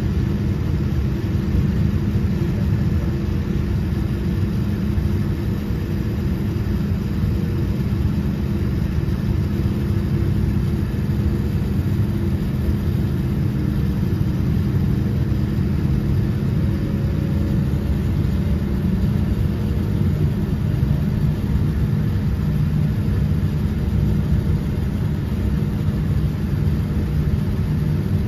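Cabin noise inside a Boeing 787-10 taxiing: a steady rumble with the engines' even hum at low taxi power.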